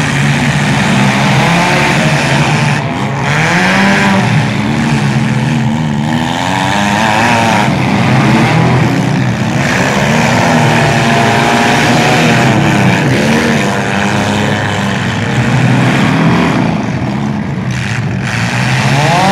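Several demolition-derby compact cars' engines revving hard together, their pitches rising and falling over and over as the cars accelerate and ram one another.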